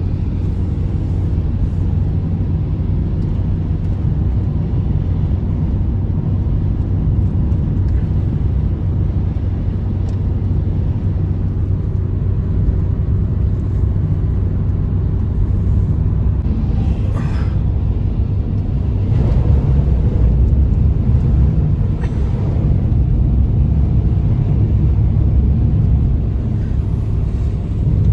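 Blizzard wind, a loud steady low rumble that swells in a stronger gust about two-thirds of the way through.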